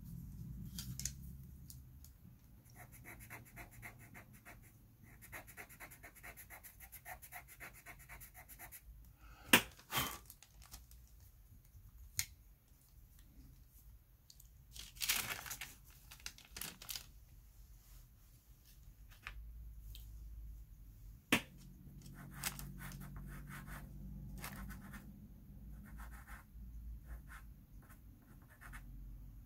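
Faber-Castell pastel pencil scratching across pastel paper in quick strokes, with a dense run of rapid strokes early on. There are a few sharp clicks, the loudest a little after a third of the way in and again past two thirds, and a short rustle near the middle.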